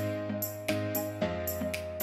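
Background music with a steady beat: sustained pitched notes over a bass line, with a sharp percussive stroke about every half second.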